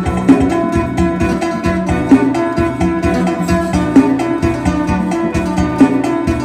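Isan phin, the plucked lute of northeast Thailand, playing a lively lam sing tune: quick plucked notes over a steady held drone note, with a strong accent about every two seconds.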